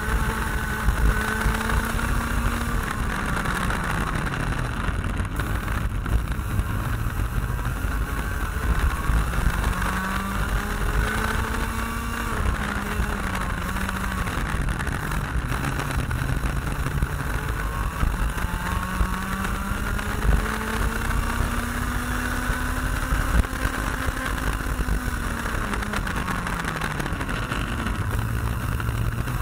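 IAME X30 Junior 125cc two-stroke kart engine at racing speed, its note climbing steadily along the straights and dropping sharply off the throttle into corners, about three times, with wind rumble on the onboard microphone.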